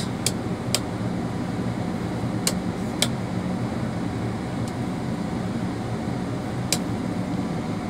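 Steady hum of a Volvo EC350DL excavator's diesel engine idling, heard from inside the operator's cab, with about five sharp clicks scattered through it.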